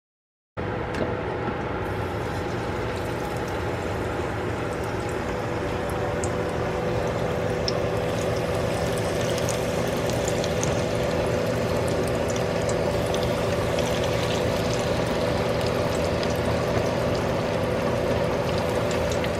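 Cornstarch-coated chicken wings deep-frying in a pot of hot oil: steady sizzling and bubbling with small crackles and a steady hum underneath. It starts suddenly about half a second in.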